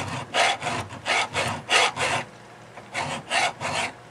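Flat hand file rasping back and forth across thin stainless steel sheet, filing off a punched dimple. The strokes come quickly, about three a second, with a short pause a little past halfway.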